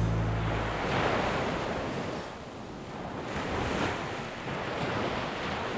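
Ocean surf washing over rocks: a steady rushing of waves that swells and eases every second or two. The last low notes of music die out in the first second.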